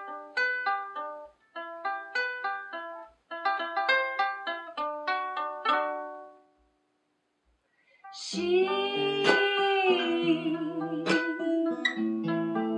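A short melody of plucked, ringing notes in quick phrases, which stops about six and a half seconds in. After a short gap, an acoustic guitar and a ukulele start playing together, with a held wavering note over the chords.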